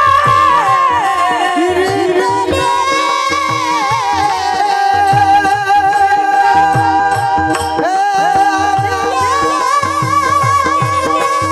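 Marathi devotional singing: a male voice holds long, ornamented notes with sliding pitch over steady sustained instrumental tones and a regular drum beat.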